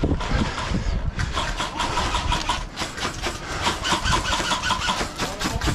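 Airsoft electric guns firing on full auto, a fast clatter of shots.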